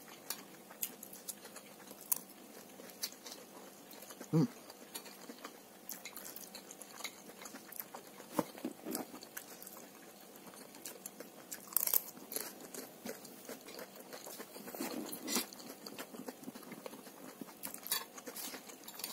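A person chewing and biting mouthfuls of fried rice close to the microphone, with scattered small clicks of a metal spoon against a ceramic plate and a short rising tone about four seconds in.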